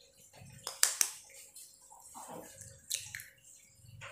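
A raw egg being cracked over a bowl: two sharp taps of the shell about a second in, then more clicks and cracks as the shell is pulled apart.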